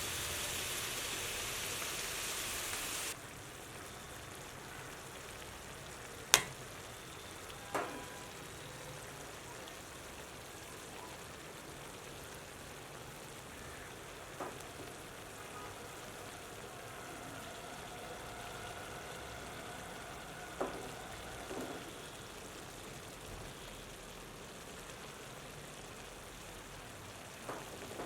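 Curry frying in a pan: a loud sizzle for about the first three seconds that cuts off suddenly, then a quieter steady sizzle. Now and then a metal spoon clinks sharply against the pan, loudest about six seconds in.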